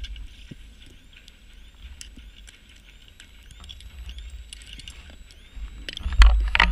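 Underwater scuba diver's breathing: a quiet stretch with faint scattered clicks, then a loud low rush of exhaled bubbles starting about six seconds in.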